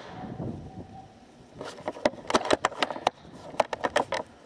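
Handling noise on an airsoft sniper rifle: an irregular run of sharp clicks and clacks, coming in two clusters from about a second and a half in to near the end.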